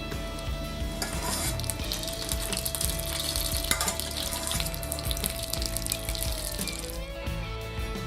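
Melted butter sizzling and crackling in a frying pan around a cooking omelette, easing off near the end.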